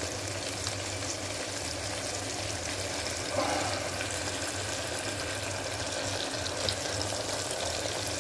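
Onion, tomato and green chilli tadka frying in hot oil in an open pressure cooker: a steady sizzle, with one brief louder spell about three and a half seconds in.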